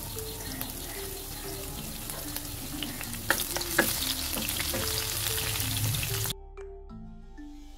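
Sliced onions and whole spices sizzling in hot oil in a nonstick frying pan. About three to four seconds in, a spatula stirs them with a few sharp scrapes against the pan. The sizzle cuts off suddenly about six seconds in.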